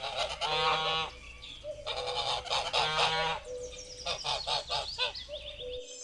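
Geese honking: a run of repeated honks, some overlapping at different pitches, in several bouts.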